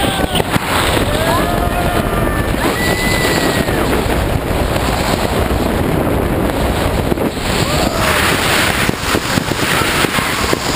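Loud, steady wind rush buffeting the camera microphone while hanging under an open tandem skydiving parachute.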